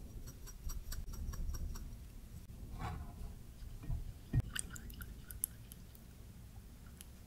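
Dried parsley shaken from a small glass spice jar, a quick run of light clinking ticks, then a silicone basting brush stirring melted butter-garlic sauce in a glass dish: a sharp knock of brush against the dish and small wet squishing clicks.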